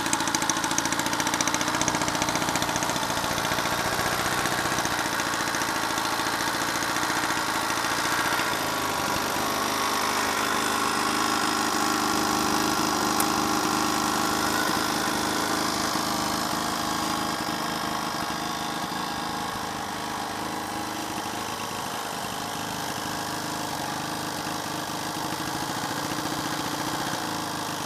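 A 1954 Monark Monarped moped's 50cc JLO FP 50 single-cylinder two-stroke engine idling, a little fainter in the last third.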